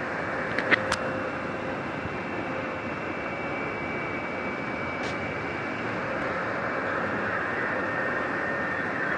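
Steady rushing noise, with a few sharp clicks about a second in and one more near the middle.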